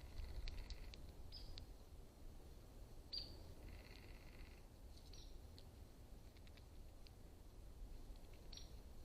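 Faint wild bird calls: scattered short high chirps and two brief buzzy trills, over a steady low rumble.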